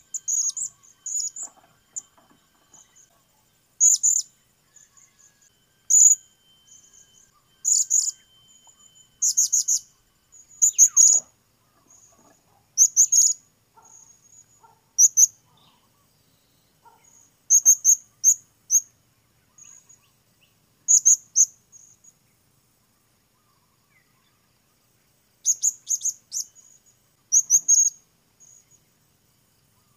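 Blue-crowned hanging parrot calling: short, very high, sharp chirps in quick clusters every second or two, with a lull about three-quarters through.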